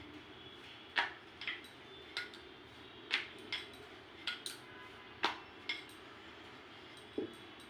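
Wooden rolling pin rolling out dough on a granite counter: sharp, short clicks and taps at irregular spacing, about one or two a second, as the pin is worked back and forth.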